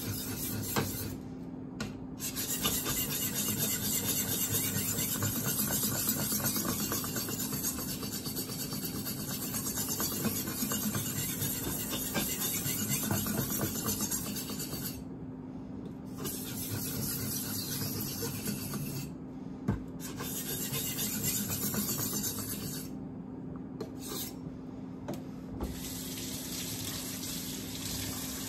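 A steel kitchen knife is rubbed back and forth on a diamond sharpening stone, a steady gritty rasping with a few short pauses. It is grinding down the shoulder behind the edge, not the edge itself. Near the end a kitchen faucet starts running.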